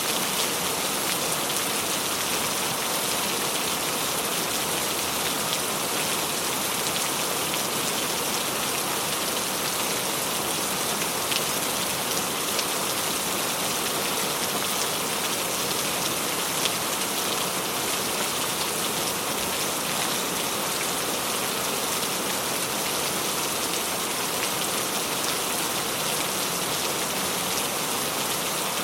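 Steady rain falling: an even hiss of rain with a few sharper drop ticks.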